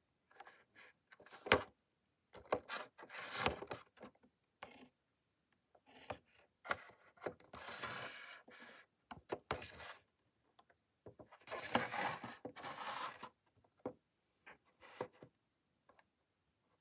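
Plastic blister packaging and its cardboard backing card rubbing and crinkling in the hand as the toy package is turned over, in irregular bursts with short pauses between them.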